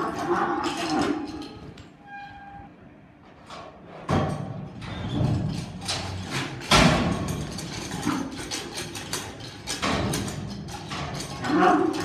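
A bucking bull's hooves and body thudding on the dirt of an arena as it bucks, with a bull bellowing near the end.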